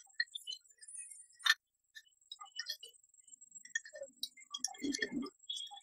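Irregular small clicks and ticks of a metal screwdriver tip tapping against a plastic phone charger case and a bottle cap as petrol is dabbed along the case seam. A sharper click comes about one and a half seconds in, and a duller low knock near the end.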